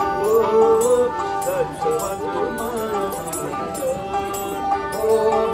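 Two Nepali sarangis, small bowed folk fiddles, playing a folk tune together, the melody bending up and down.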